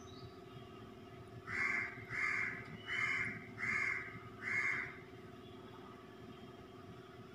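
A crow cawing five times in a quick, even series of harsh calls, starting about a second and a half in.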